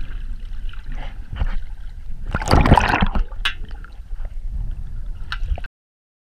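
Water sloshing and bubbling, heard underwater, over a low rumble, with a louder rush of water about two and a half seconds in. The sound cuts off abruptly to silence near the end.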